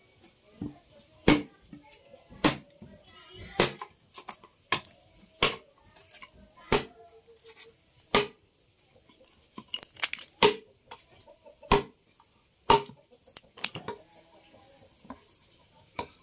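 Machete (golok) blade chopping into a standing length of dry bamboo: a string of sharp strikes, roughly one a second and unevenly spaced, some leaving a brief ring, as the bamboo splinters.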